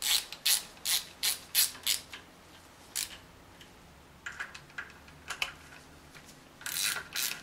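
Hand ratchet clicking in short strokes as the lower timing chain guide's E8 Torx bolts are run down by hand, about two to three clicks a second at first, pausing briefly in the middle, then picking up again in a quicker run near the end.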